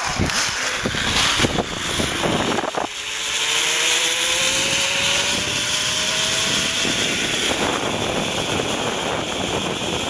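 Zipline trolley pulleys running along the steel cable with wind rushing over the microphone, a few knocks in the first seconds as the ride starts, then a whine that rises slowly in pitch as speed builds.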